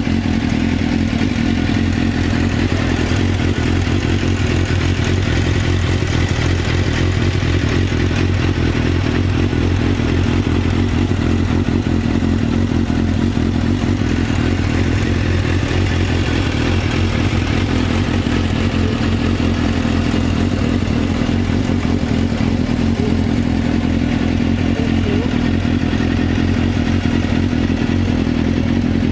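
Suzuki GSX-R 750 K5's inline-four engine idling steadily, heard close to the exhaust, with no revving.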